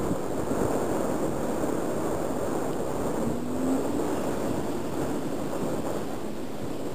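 Wind rushing over the microphone, with the faint drone of a distant Jodel D-18 light aircraft's engine, which rises briefly in pitch about three seconds in.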